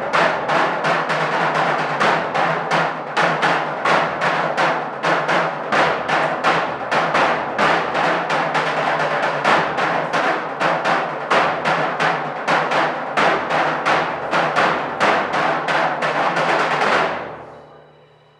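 A group of drums beaten together in a steady, driving rhythm of about three strokes a second. The drumming stops together about a second before the end and dies away.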